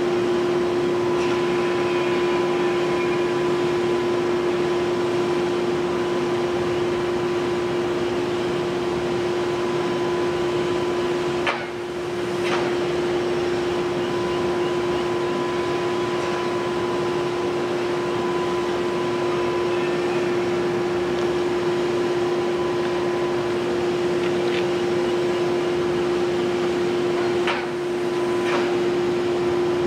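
Komatsu PC 490 long-reach demolition excavator running steadily at working revs, its diesel engine and hydraulics giving a constant droning hum with a steady whine in it.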